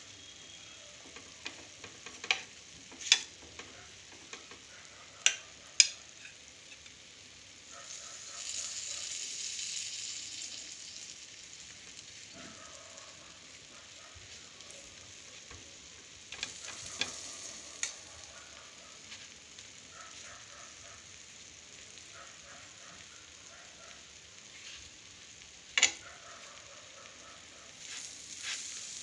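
Butter-coated frankie rolls sizzling faintly on a tawa. A metal knife clicks and taps against the pan a handful of times as it spreads butter over the rolls, and the sizzle swells briefly about eight seconds in.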